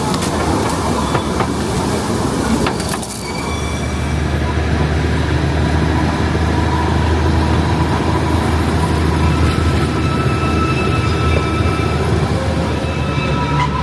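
Darjeeling Himalayan Railway narrow-gauge toy train running, heard from aboard: steady rail noise with a few clicks, a low drone setting in about three and a half seconds in, and thin high-pitched tones from the wheels on the rails.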